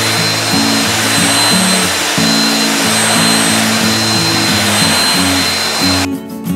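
Handheld electric belt sander running over a wooden board, a steady loud rushing noise with a thin high whine through it; it cuts off abruptly about six seconds in.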